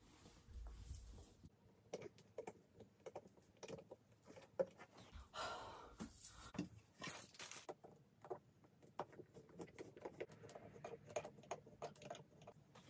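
Faint, scattered clicks and light knocks of white flat-pack bookshelf panels and a screwdriver being handled during assembly, with a brief rustle of hair and clothing about five to seven seconds in.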